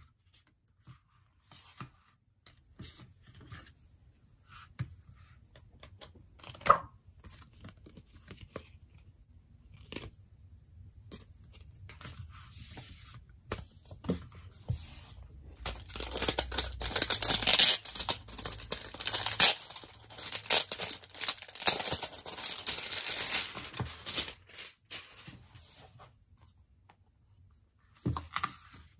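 Hands handling a CD album's cardboard digipak, paper booklet and photocard: scattered taps and paper slides, including one sharp tap, then several seconds of loud, dense paper rustling from about halfway through.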